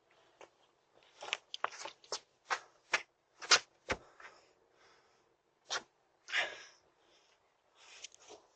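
Scattered short knocks, clicks and scuffs, bunched in the first four seconds with a couple more and a brief rushing noise later, picked up through a doorbell camera's small microphone.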